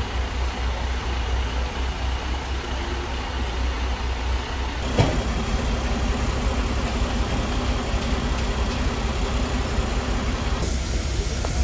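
A fire engine's diesel engine running steadily with a low rumble. A single sharp click comes about five seconds in.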